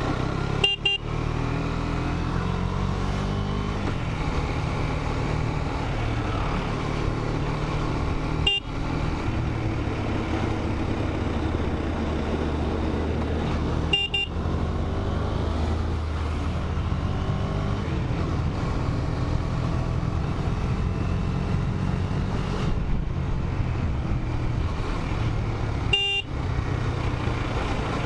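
KTM 250 Duke's single-cylinder engine running under way, its note rising and falling with the throttle, and a short horn toot four times: about a second in, about a third of the way, about halfway and near the end.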